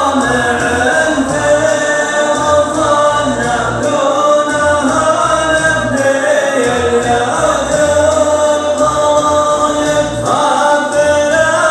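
Vocal music: several voices singing together in a choir-like song, with low notes coming and going underneath.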